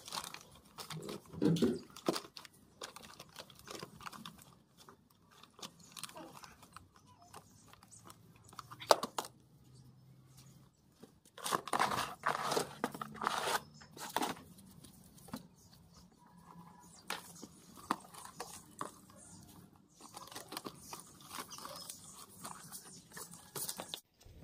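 A German shepherd chewing and tearing an empty cardboard box: irregular crunching and crackling of cardboard, with louder spells of crunching about a second in, around nine seconds, and again from about eleven to fourteen seconds.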